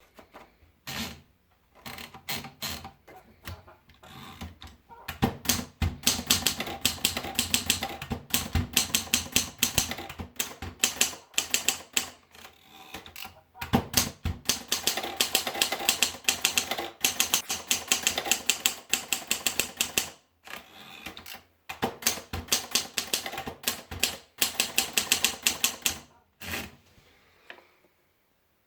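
Triumph Durabel manual portable typewriter being typed on: runs of rapid key strikes, the typebars clacking against the platen several times a second, broken by short pauses.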